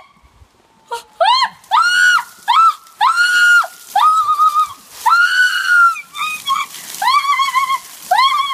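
A woman shrieking again and again, about ten high-pitched screams in a row, at the shock of a bucket of ice-cold water poured over her head.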